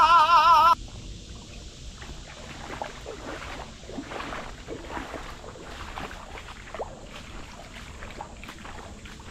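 A loud wavering, warbling tone with heavy vibrato that cuts off abruptly within the first second, then quiet, irregular light water splashes and trickles, like paddling or moving through shallow water.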